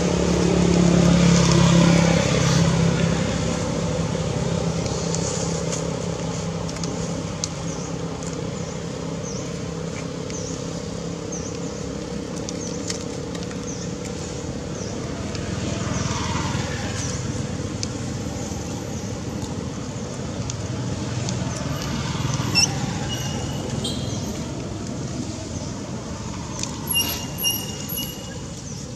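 Steady rumble of road traffic and engines, louder in the first few seconds. Short, high repeated chirps come in near the end.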